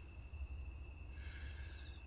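Night insects: a cricket trilling steadily at one high pitch over a low rumble, joined about a second in by a brief, fast pulsed chirping.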